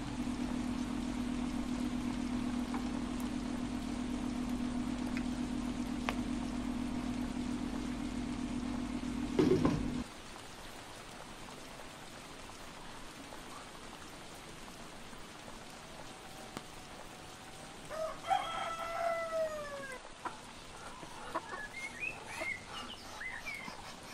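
A steady low hum ends in a sharp knock and cuts off about ten seconds in. Later a rooster crows once, a long call falling in pitch at the end, followed by short scattered clucks from chickens.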